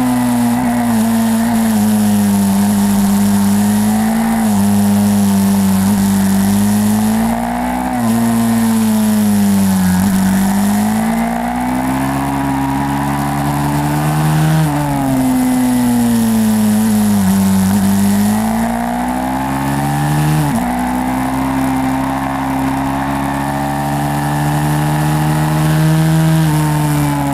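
YCF 150 SM pit bike's single-cylinder four-stroke engine running hard. Its pitch climbs and falls over and over as it revs up and eases off, with a few abrupt drops.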